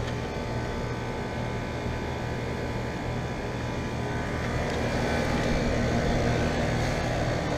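Comfortmaker central air conditioner condensing units running: a steady low compressor hum under the even rush of the condenser fans, growing somewhat louder about five seconds in.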